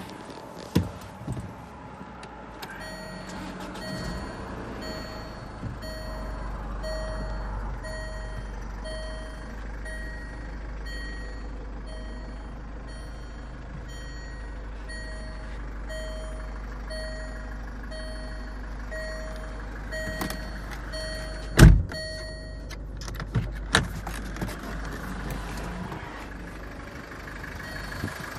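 Land Rover Freelander 2's electronic warning chime sounding over and over at a steady pace, with a low steady rumble underneath. The chime stops shortly after a single loud thump about three-quarters of the way in.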